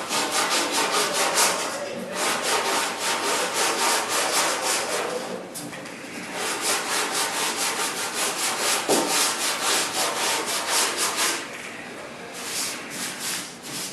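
Sandpaper rubbed by hand in quick back-and-forth strokes, about five a second, in runs broken by a few short pauses.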